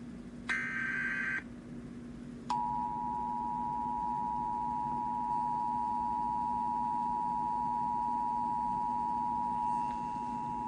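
Emergency Alert System broadcast tones. About half a second in comes a one-second burst of the screechy digital data header. About a second later the two-tone EAS attention signal starts and holds steady for about eight seconds.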